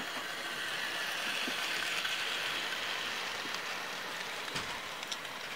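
Two Bachmann model diesel locomotives running along a model railway track with a train of wagons: a steady whirr of electric motors and rolling wheels that swells as the train passes closest, about two seconds in, then eases off, with a few light clicks near the end.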